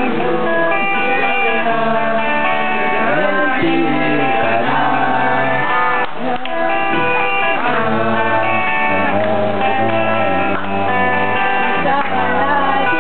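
Live band playing a song: a singer over strummed guitars, with held low bass notes underneath.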